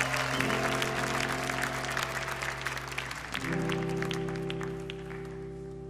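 Congregation applauding, the claps thinning out and fading away, over a sustained chord held by the band that changes to a new chord about three seconds in.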